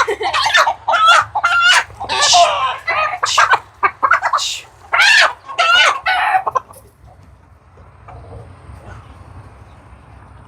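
Chicken squawking and clucking in a rapid string of loud, high calls, likely while held for a shot in the chest, stopping abruptly about six and a half seconds in.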